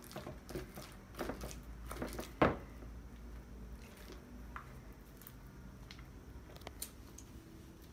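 Sticky homemade slime being squeezed, stirred and pulled by hand in a plastic tub: soft wet squishes and sharp sticky smacks, the loudest about two and a half seconds in, sparser later. The slime is still sticky and has not yet set.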